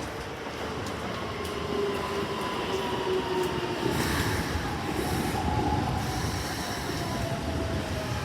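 Electric commuter train running through the station, its motor whine gliding steadily downward in pitch as it slows, over a rumble of wheels on rail.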